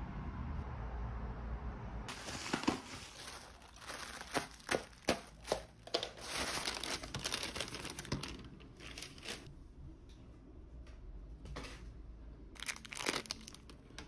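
Clear plastic packaging bags crinkling and rustling as they are handled and opened, in irregular bursts with a few sharp crackles, starting about two seconds in.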